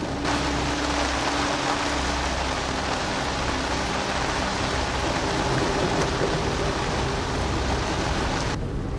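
Rain falling on the boat and the marina, a dense, even hiss. It cuts off abruptly just before the end.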